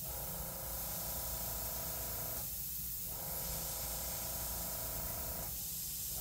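Gravity-feed airbrush spraying paint: a steady hiss of air, thinning briefly twice.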